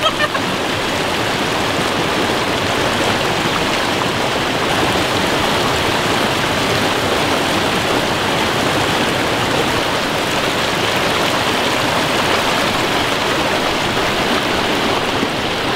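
Mountain stream rushing over boulders and rocks: a steady, even rush of flowing water.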